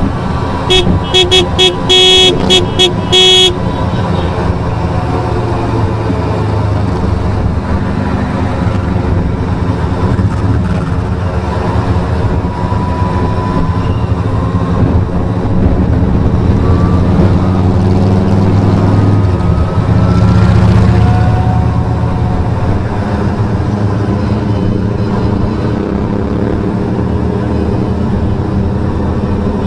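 Motorcycle riding at motorway speed: steady engine and wind rumble. About a second in, a horn toots in a quick series of short blasts lasting about three seconds, and the engine noise swells briefly about two-thirds of the way through.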